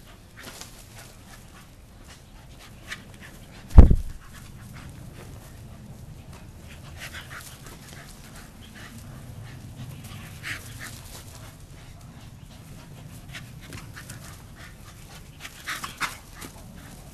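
Staffordshire bull terriers panting hard while chasing and grabbing at a flirt-pole lure, with scattered short scuffling sounds. A single loud thump about four seconds in is the loudest sound.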